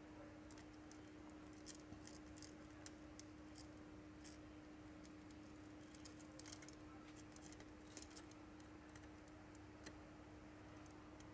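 Near silence: faint, scattered light clicks and ticks of small metal engine parts and tools being handled, over a steady faint hum.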